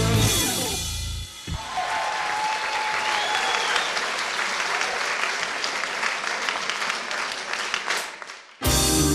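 A rock band's piece ends with its final chord dying away, and an audience applauds for several seconds. Band music cuts back in abruptly near the end.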